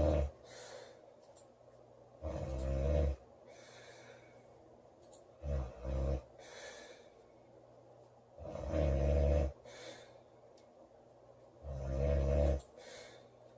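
A woman snoring loudly in her sleep, a low snore about every three seconds. A fainter airy breath follows each snore, and one snore near the middle comes in two short catches.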